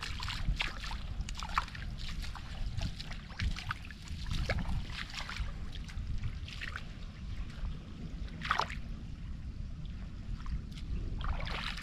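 Fast-flowing canal water rushing and splashing in irregular little spurts, over a steady low rumble.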